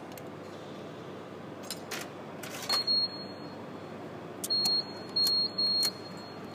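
Vending machine keypad beeping as its buttons are pressed: four short high beeps, one about three seconds in and three close together near the end, after a few light clicks.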